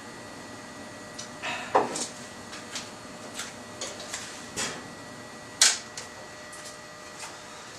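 A scattered series of light clicks and knocks, as of small hard objects being handled and set down. Two knocks stand out, one about two seconds in and a sharper one near the middle.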